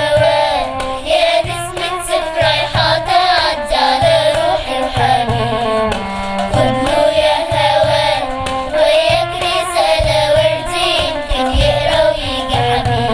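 Girls' children's choir singing a melody in unison with instrumental accompaniment and a steady drum beat.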